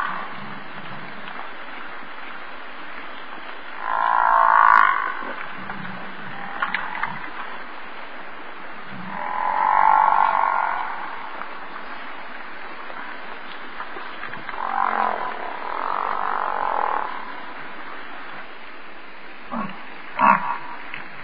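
Bison grunting calls, each about a second long, coming every few seconds over a steady background hiss, with a few short grunts near the end.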